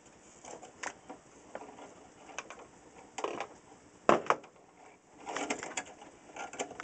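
Small clicks, taps and rattles of a radio chassis and its wires being handled, with the sharpest click about four seconds in and a busy cluster of rattles just after five seconds.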